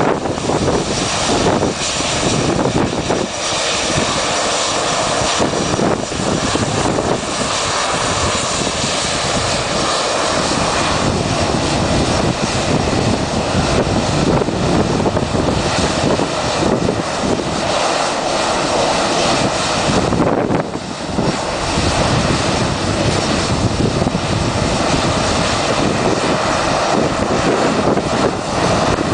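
Airbus jet airliner taking off under engine thrust, a loud steady rush of jet noise with a faint steady whine, dipping briefly about twenty seconds in.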